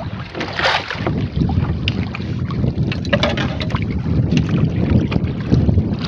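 Wind buffeting the microphone over open sea: a steady, uneven low rumble, with scattered small clicks and splashes as a handline and fish are pulled in over the side of the boat.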